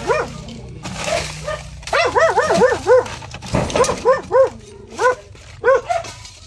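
A dog barking repeatedly: short, sharp barks in quick runs, the longest a run of about five barks around two seconds in.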